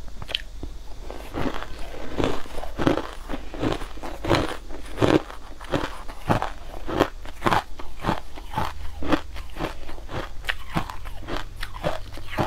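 Close-miked crunching and chewing of a mouthful of pink crushed ice, a steady run of crisp crunches about two to three a second.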